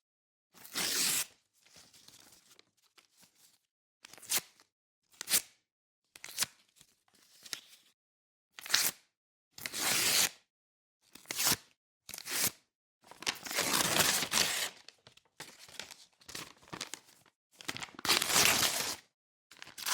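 Pages being torn out of a book, one after another: a series of separate paper rips, some quick and sharp, others drawn out over a second or so, with silent gaps between.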